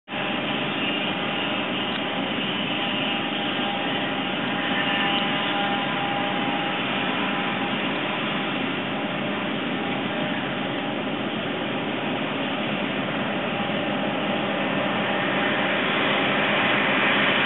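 John Deere 7750 self-propelled forage harvester running under load, a steady, dense machine noise with a few steady tones from the engine and cutter drive, getting slightly louder near the end.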